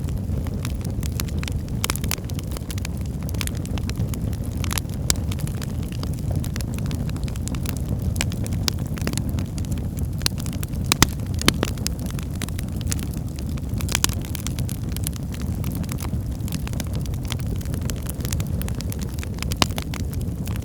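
Wood fire burning in a fireplace: a steady low rumble of flames with frequent sharp crackles and pops from the burning logs, a few louder pops along the way.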